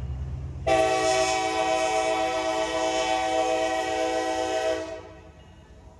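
Norfolk Southern freight locomotive's air horn sounding one long, steady blast of about four seconds as the train reaches the grade crossing, over the low rumble of the diesel engine; the blast starts about a second in and cuts off sharply near the end.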